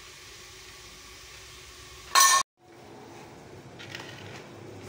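A short, loud clatter of dishes about two seconds in, cut off abruptly by a moment of silence, then faint kitchen background with a light clink.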